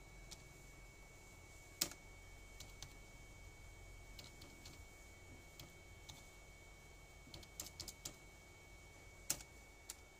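Scattered clicks of computer keyboard keys: a few separate keystrokes, with a quick run of them about three-quarters of the way through, over a faint steady high tone.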